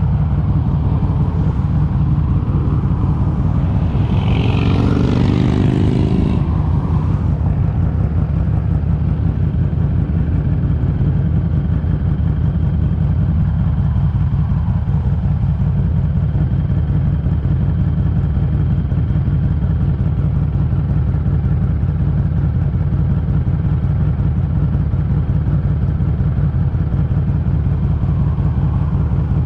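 Harley-Davidson Street 500's V-twin running under way through an aftermarket TAB Performance exhaust, heavily covered by wind buffeting on the microphone. A brief, louder swell of sound with a shifting pitch comes about four seconds in and fades after about two seconds.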